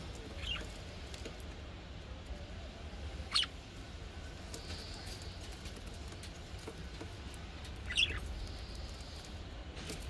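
Budgerigars giving three short, separate chirps a few seconds apart, the middle one the loudest, over a low steady background rumble.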